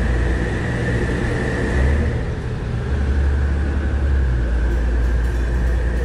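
Boat engine running with a steady low rumble and a faint, even whine above it.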